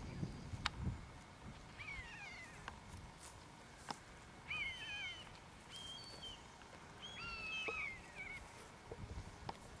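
A buzzard calling several times, high mewing cries that slide down in pitch, mixed with shorter level whistles a second or two apart. A few low thumps of wind or handling fall near the start and near the end.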